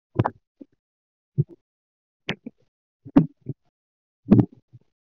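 Irregular short thumps and knocks, about one every second, with silence between them.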